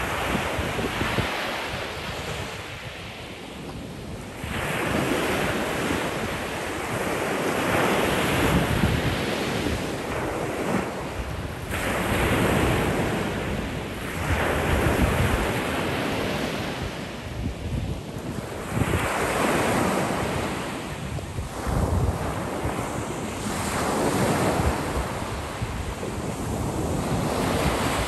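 Black Sea surf breaking and washing up a small-pebble shore, swelling and falling back every few seconds, with wind buffeting the microphone.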